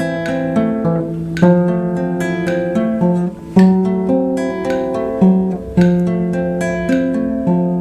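Background music: acoustic guitar playing, strummed chords with picked notes between them.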